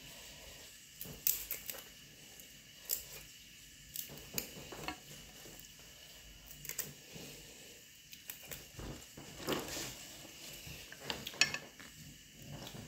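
Kitchen utensils and dishes being handled: scattered light clicks and knocks at irregular intervals, with the sharpest ones about a second in and near the end.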